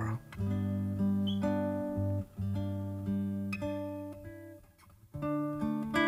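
Acoustic guitar music: plucked notes and chords ringing on and changing every second or so. They die away to a brief lull about four and a half seconds in, and a new phrase starts just after.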